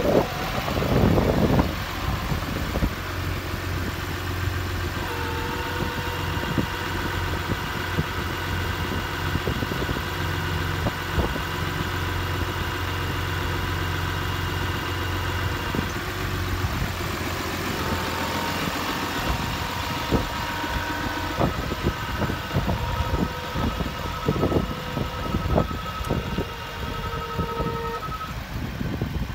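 Cummins turbo-diesel straight-six of a 2008 Sterling Bullet 5500 bucket truck running steadily with the PTO engaged. A steady whine from the PTO-driven hydraulics comes in over it in two long stretches as the boom is operated, with a few scattered knocks.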